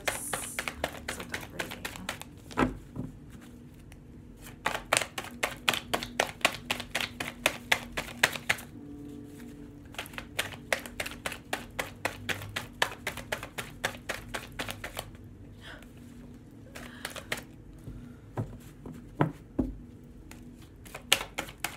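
A deck of tarot cards shuffled by hand: a quick patter of card flicks and taps, about four or five a second, in spells of a few seconds with brief pauses and an occasional single knock between them.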